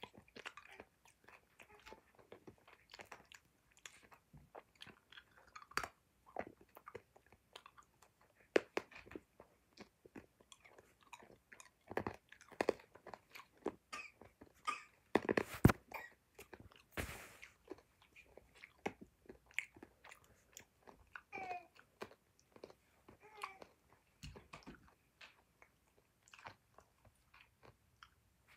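A child chewing and crunching a Lemonhead hard candy close to the microphone: irregular crunches and mouth clicks, with the loudest cluster of crunches about halfway through.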